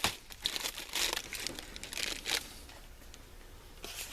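Crinkling rustle of handled plastic packaging: several irregular rustles in the first couple of seconds, then fainter.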